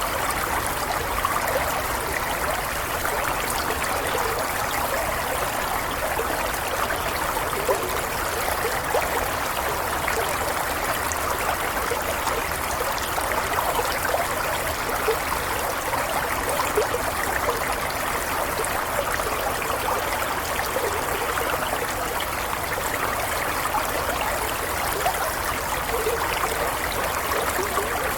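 Water running in a small stream, a steady babble with small trickles and splashes.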